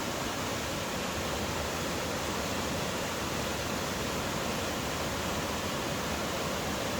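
Steady rush of a mountain river where two branches meet.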